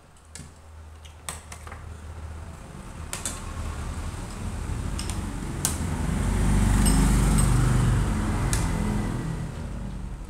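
Low engine rumble of a passing vehicle, swelling over several seconds to its loudest about six to eight seconds in and then fading, with scattered sharp clinks of spoons and forks on plates.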